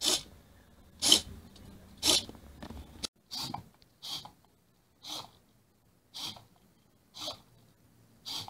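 Small hobby servo motors of a homemade Arduino insect robot whirring in short bursts, about one a second, as they drive its legs.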